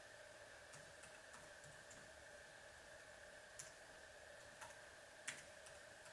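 Faint, scattered key presses on a white computer keyboard: about five separate clicks a second or so apart, not a steady run of typing. A faint steady hum lies under them.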